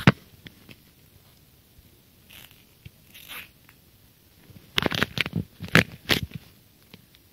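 Handling noise from the phone doing the recording: a sharp knock at the start, a few faint scrapes, then a burst of several loud rubbing scrapes and knocks about five to six seconds in, as the microphone is rubbed against a hand or cloth.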